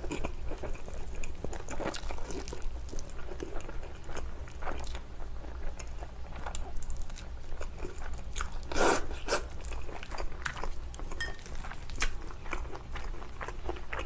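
Close-miked eating: chopsticked cold noodles slurped and chewed, with crisp crunching bites and irregular wet mouth clicks, and one louder mouth noise about nine seconds in.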